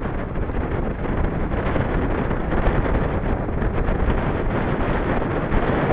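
Wind buffeting the microphone of a worn camera while riding a bicycle: a loud, steady rumble.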